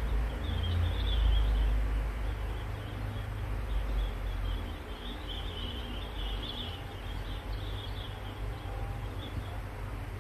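Outdoor ambience: a steady low rumble with high, irregular chirping through most of it.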